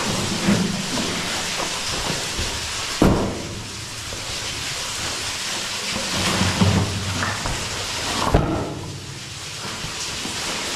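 Steady hiss, with two sharp knocks, one about three seconds in and one just past eight seconds. Bags of ore and a plastic ore sled are being handled against the tire bumper at the foot of a wooden chute.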